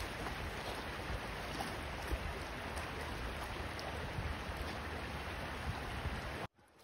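Shallow river flowing over stones: a steady rushing of water. It cuts off suddenly near the end.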